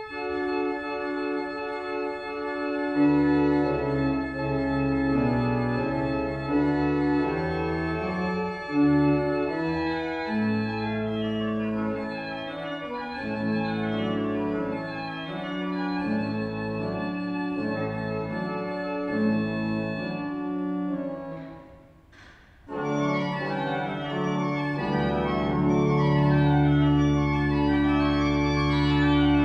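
Pipe organ playing: sustained chords with moving voices over deep pedal bass notes. About three-quarters through it breaks off briefly, then resumes fuller and somewhat louder.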